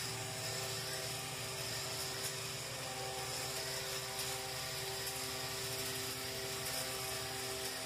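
Small geared electric motor of a toy walking robot running steadily, a whirring hum with held tones.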